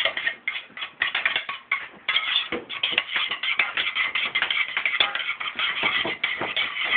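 A utensil stirring fast in a stainless steel pot, clicking and scraping against its sides and bottom, as sour cream is mixed into a thick gravy.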